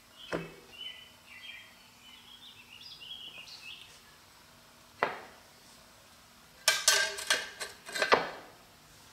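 Steel plates and friction discs of a six-disc tractor-pulling wet clutch clinking as they are stacked onto the clutch hub by hand. There is a single knock shortly after the start and a sharp click about halfway through. A quick run of ringing metal clanks comes near the end and is the loudest part.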